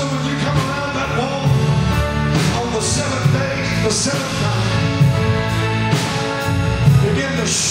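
Live praise-band music driven by a drum kit, with a few cymbal crashes over sustained chords and bass.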